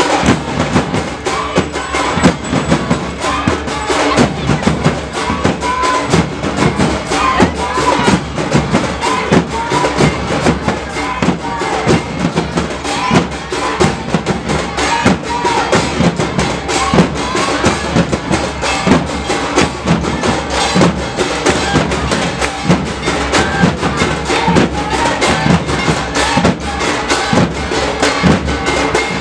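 Matua Harinam kirtan music: drums beaten in a loud, steady, driving rhythm with other percussion over it.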